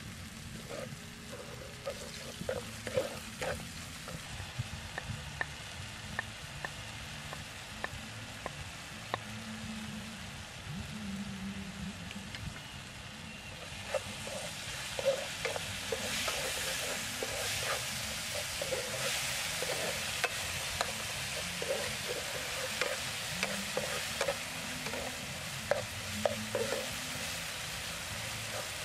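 Minced pork sizzling in a non-stick frying pan while a spatula stirs it, with frequent short scrapes and taps of the spatula against the pan. The sizzle grows louder about halfway through.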